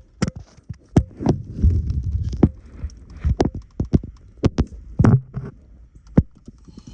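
Irregular sharp clicks and knocks, about fifteen in all, with spells of low rumbling: tools and parts being handled while a car is put back together after a starter replacement.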